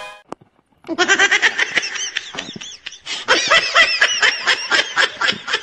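A person laughing hard in quick, high-pitched bursts, starting about a second in, with a short break near the three-second mark.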